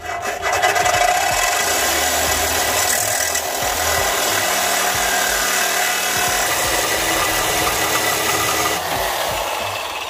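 Corded reciprocating saw cutting through a rusty steel exhaust pipe: a loud, continuous rasping metal-cutting noise that fades near the end as the blade cuts through.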